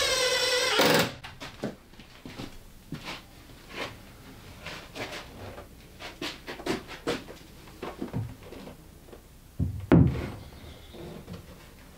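Makita 18V cordless impact driver running a screw into the cabinet side, stopping about a second in. Then scattered light knocks and rubs as the furniture-board cabinet carcass is handled, with one heavy thump near the end as it is set down.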